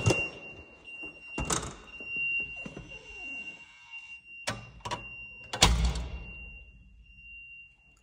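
Thunks and knocks of a fob-access school door being tried after its card reader scans green but the lock stays shut, the loudest a heavy thump a little over halfway in. A steady high-pitched electronic tone runs underneath.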